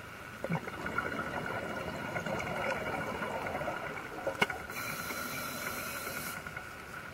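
Underwater sound of a scuba diver's regulator heard through the camera housing: a stretch of exhaled bubbles, then a steady hiss of inhaled air for about a second and a half near the end, with a sharp click just before it.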